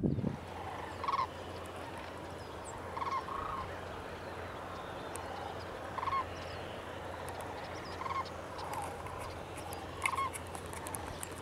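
Sandhill cranes calling at a distance: short rolling calls repeated every second or two over a steady background hiss.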